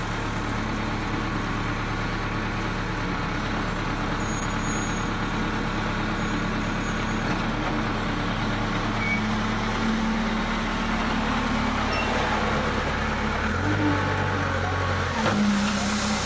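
Backhoe engine running steadily during digging work; its note rises for a couple of seconds near the end, then drops back.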